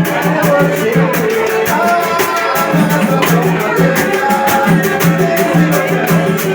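Percussion-led music: drums beating a steady pulse under a fast, even stream of sharp high percussion strikes.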